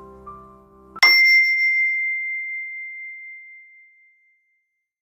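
Soft background music fades out, then about a second in a single bright bell ding sounds and rings out over about three seconds before dying away.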